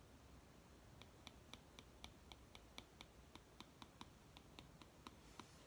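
Apple Pencil tip tapping on an iPad Pro's glass screen in quick short strokes: faint, even clicks about four a second, starting about a second in.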